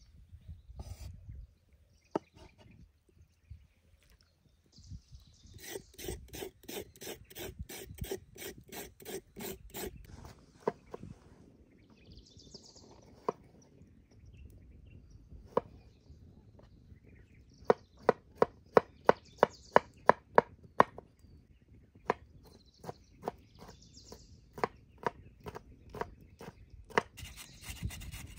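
A kitchen knife chopping vegetables on a wooden cutting board, in runs of quick, evenly spaced strokes of about three to four a second, with single knocks between runs; the loudest run is about a dozen sharp chops a little past the middle. Near the end a hand grater starts rasping as a carrot is grated.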